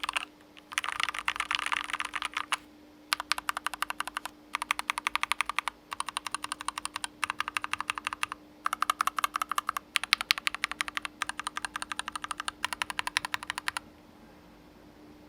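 Typing on a KBDfans Mountain, a split ergonomic mechanical keyboard with an aluminum top-mount case: fast runs of keystrokes in several bursts with short pauses between them, stopping a second or so before the end.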